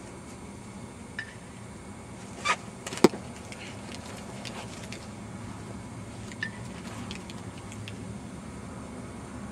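A baseball skipping in the dirt and knocking off a catcher's gear as he blocks it: two knocks about half a second apart around three seconds in, the second short and sharp and the loudest. Steady background noise runs underneath.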